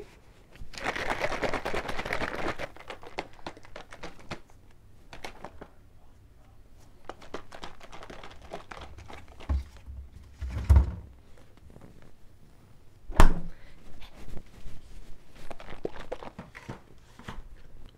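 Cream being shaken hard in a plastic bottle to whip it, a dense sloshing rattle for about two seconds near the start. Later come quieter scattered knocks and a few sharp thuds, two of them louder, around 11 and 13 seconds in.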